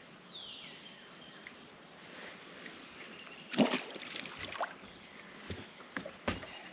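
A largemouth bass dropped back into the lake over the side of a bass boat: one splash about three and a half seconds in, followed by a few sharp knocks on the boat's deck. A bird's faint falling whistled notes can be heard near the start.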